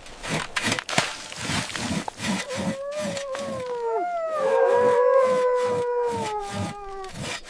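Rhythmic strokes of a saw cutting, about three a second. A long, wavering animal howl rises and falls over them from about two and a half seconds in until near the end.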